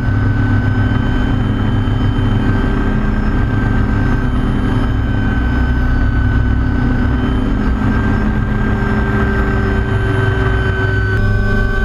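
MD500C helicopter's turboshaft engine and rotor heard from inside the cockpit: a loud, steady rotor rumble under a whining engine tone as the helicopter lifts off the deck. The pitch of the tones shifts abruptly near the end.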